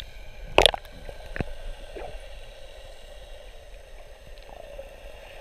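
Shallow sea water sloshing and gurgling, with one sharp splash about half a second in and two smaller ones about a second later.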